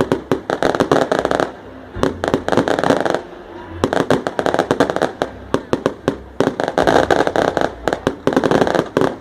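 Strings of firecrackers going off in dense runs of rapid cracks. There are several runs, each a second or two long, with short pauses between them.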